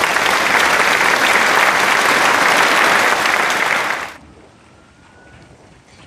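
Crowd applause, stopping abruptly about four seconds in.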